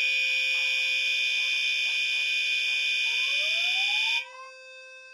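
Fire alarm horns sounding together in a loud, steady, high-pitched tone that cuts off suddenly about four seconds in. A slowly rising tone starts beneath them about three seconds in, and a fainter steady tone carries on after the cutoff.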